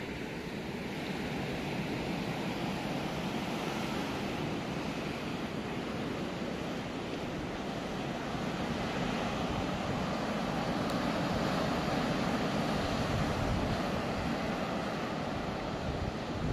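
Pacific Ocean surf breaking and washing up a sandy, rocky beach: a steady rush of noise that swells a little in the second half, with wind buffeting the microphone.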